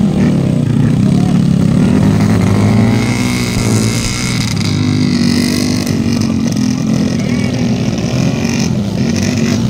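Dirt bike engines running and revving as bikes struggle through deep mud on a motocross track.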